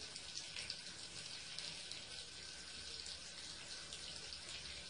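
Thin stream of tap water running steadily into a bathtub, a faint, even hiss.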